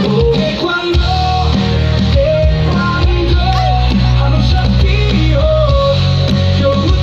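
Music: a rock-style Nepali song about taekwondo, in a passage without sung words, with a steady bass and a melodic lead line.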